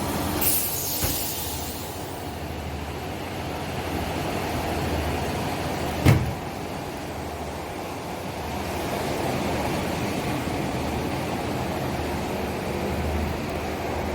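PE sleeve shrink-wrapping machine running with a steady mechanical whir. A brief hiss of air comes near the start, and a single sharp knock about six seconds in.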